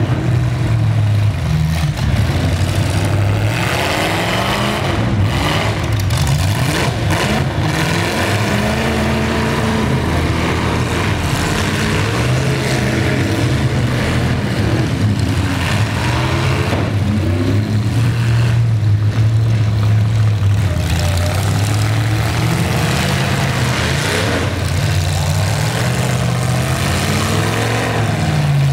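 Engines of several full-size demolition derby pickup trucks revving hard and unevenly, rising and falling as they accelerate through the mud, with a few sharp bangs about five to seven seconds in.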